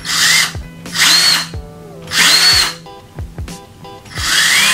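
Cordless drill boring into a wall in four short bursts of about half a second each. In each burst the motor whine rises and falls in pitch as the trigger is squeezed and let go. Background music with a steady beat plays underneath.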